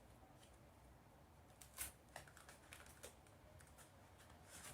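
Near silence with a few faint clicks and rustles of cardboard tubes and sticky tape being handled, the clearest about two seconds in.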